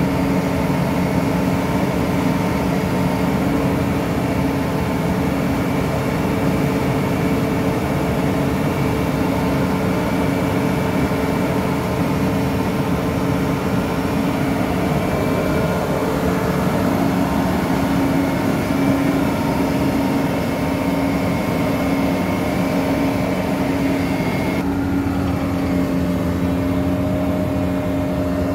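Asphalt paver's diesel engine running steadily: an even drone with a few held tones and a faint high whine. About 25 s in the higher part of the sound drops away abruptly.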